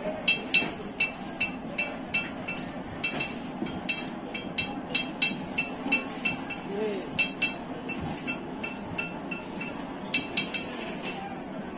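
Ringing metallic clinks of a hammer striking metal at a blacksmith's forge, about two or three blows a second with a few short pauses, over a steady low rush.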